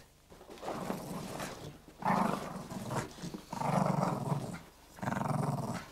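A Staffordshire Bull Terrier growling in a series of about four rough growls, each a second or so long.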